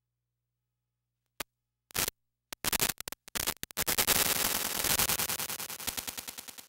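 A few sharp, isolated clicks, then a rapid stuttering run of hits that speeds up into a dense rattle and dies away in quick repeating pulses, like an edited-in sound effect or music rather than sound from the field.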